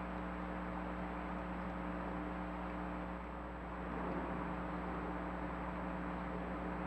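Steady hiss with a low electrical hum and a thin, faint high whine: the recording self-noise of a trail camera's built-in microphone, with no distinct animal sound standing out.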